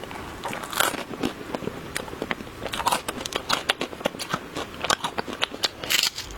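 Close-miked crunching and chewing of a chocolate treat: many sharp, irregular crackles and snaps, with louder crunches about a second in, near the middle and near the end.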